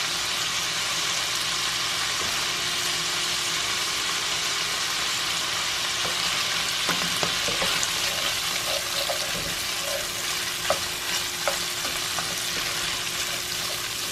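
Sliced beef-and-pork sausage and onions sizzling steadily in bacon grease and butter in a stainless steel skillet. From about halfway through, a spoon stirs them, adding scattered clicks and scrapes against the pan.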